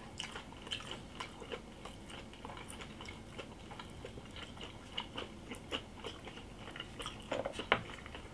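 Close-up chewing and biting of boiled pork belly with fresh kimchi: soft irregular crunches and wet clicks, with a couple of louder clicks near the end.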